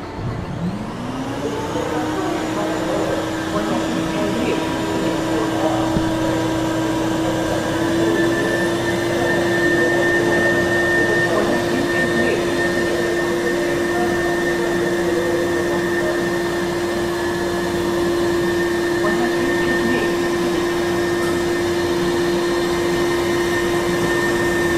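Vacuum pump of a robotic ice cream vending machine's suction gripper running: it spins up about half a second in, holds a steady hum with a thin whine above it while the suction head holds a cup, and winds down at the end.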